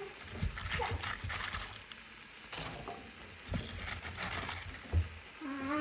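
Purple cabbage being stirred and tossed in a cooking pan: irregular wet rustling and scraping, with a few soft knocks.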